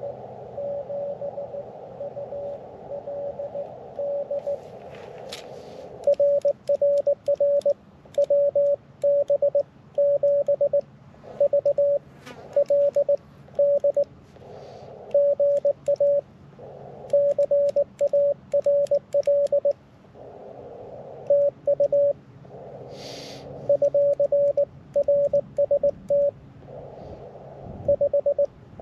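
Morse code (CW) from a QRP ham transceiver on 40 meters, a single tone keyed in dots and dashes. For the first few seconds a fainter received signal sits in the hiss of the receiver's narrow filter. About six seconds in, the louder sending sidetone takes over, with the receiver hiss coming back in the pauses between groups.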